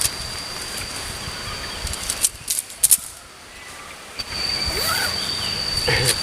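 Forest ambience with an insect droning in one steady high tone, such as a cicada. The drone breaks off for about two seconds midway and then resumes. A few sharp clicks or snaps come as it stops.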